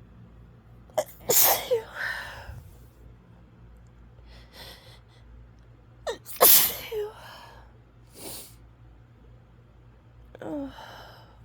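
A woman sneezing three times in an allergy fit, with sniffles in between. The sneeze about six seconds in is the loudest, and the last one, near the end, is weaker.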